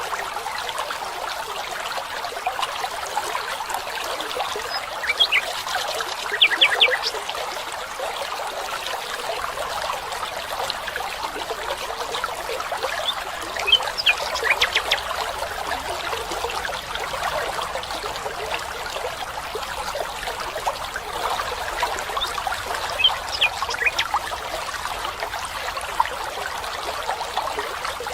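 Small stream of running water trickling steadily, with short bird chirps breaking in a few times.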